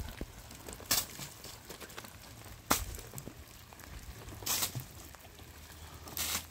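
Rainwater scooped from a tarp roof with a bowl and thrown off in splashes, four times about a second and a half apart, one of them a sharp knock.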